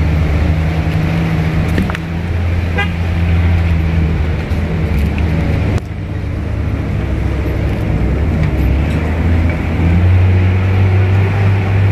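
A vehicle engine running steadily as it drives, with a brief toot about three seconds in.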